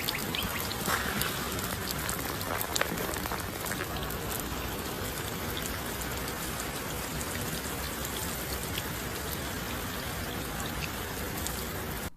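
Water sprinkling steadily over a tortoise, an even patter like rain with a few small ticks of drops.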